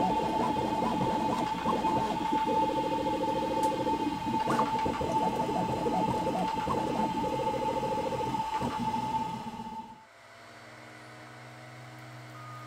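Ender-3-based Voron Switchwire 3D printer printing: stepper motors whine in short pitched runs as the print head moves, over a steady high tone and small clicks. About ten seconds in the printing sound cuts off to a much quieter stretch with faint low steady tones.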